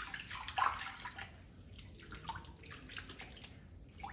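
Water splashing and dripping in irregular bursts, from hand-washing a rusty anvil with water and a wire brush.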